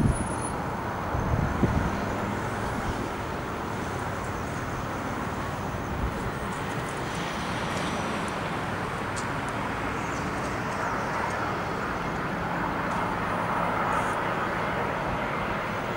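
Airbus A319's two IAE V2524-A5 turbofan engines on final approach, a steady jet noise that grows a little louder as the aircraft nears. A couple of wind buffets hit the microphone in the first two seconds.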